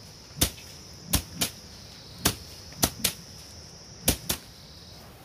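Long wooden sticks beating a pile of dried soybean plants to thresh out the beans: eight sharp whacks, several of them in quick pairs.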